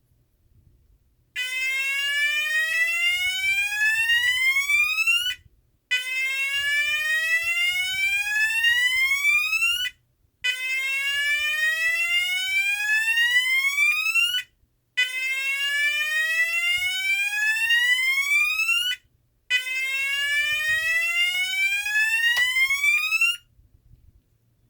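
Federal Signal SLM800R electronic alarm sounder playing a repeating rising sweep tone: five slow upward sweeps of about four seconds each, separated by short breaks, starting about a second in.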